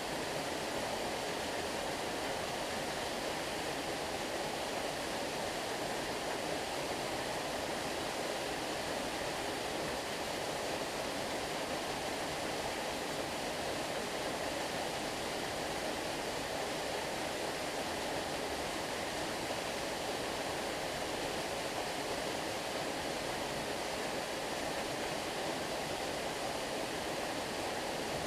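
Small waterfall rushing steadily: an even, unbroken splash of falling water.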